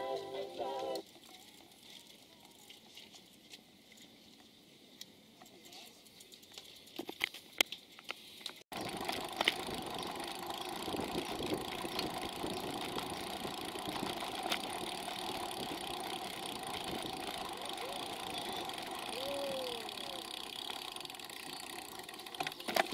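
The last second of background music, then several seconds of low, quiet noise with a few light clicks. After an abrupt cut, a steady rushing rumble of wind and tyre noise from a bicycle-mounted camera riding along a brick path.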